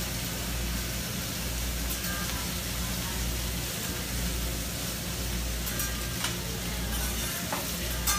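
Food sizzling on a hibachi griddle, with a few sharp metal clinks of spatula on the hot plate, the loudest near the end.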